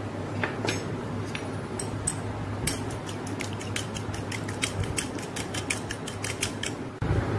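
Metal fork whisking egg and water in a ceramic bowl, the tines clicking against the bowl: a few scattered taps, then about three seconds in a fast, even run of clicks, roughly six a second. A steady low hum runs underneath.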